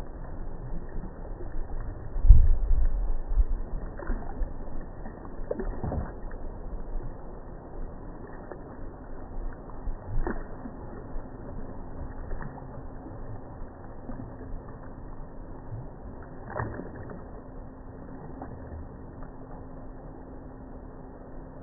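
Radio-controlled model ship running on the water: a low rumble with a faint steady hum and a few scattered knocks, and a louder low rumbling burst about two seconds in.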